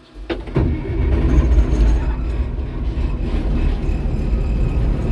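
White 8900 combine's diesel engine starting up. It fires about half a second in and settles into a steady, low running rumble.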